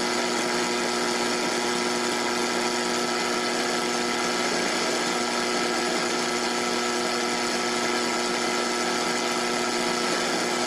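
Portable AM radio tuned to an empty frequency, giving out steady loud static with a steady buzzing tone through it: the signal of the Snap Circuits AM transmitter circuit being picked up as its tuning capacitor is adjusted.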